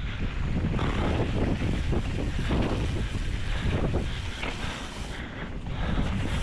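Mountain bike descending a dirt flow trail: wind buffeting the microphone over the rush of knobby tyres on dirt, with short rattles and knocks as the bike runs over bumps. It goes briefly quieter about five seconds in.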